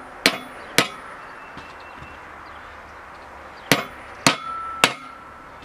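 Small sledge hammer tapping a new 6305 sealed ball bearing into a bandwheel hub by its outer race: two sharp taps in the first second, then three more near the end, one followed by a brief metallic ring. The last taps drive the bearing home until it sits solid.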